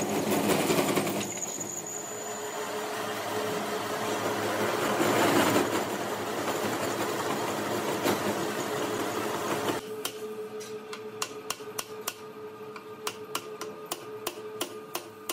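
Metal lathe running with its four-jaw chuck spinning a hydraulic cylinder. After about ten seconds the noise cuts off suddenly, and rapid light hammer taps on the steel follow, several a second, over a steady hum.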